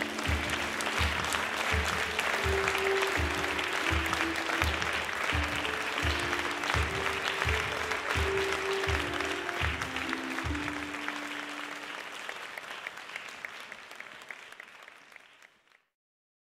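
Folk dance music with a steady beat under a crowd's applause. The music stops about eleven seconds in, and the applause fades out to silence.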